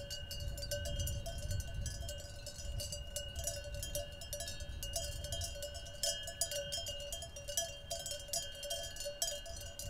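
Bells on a grazing flock of sheep clanking continuously and irregularly as the sheep move, many bells ringing at once, over a low rumble.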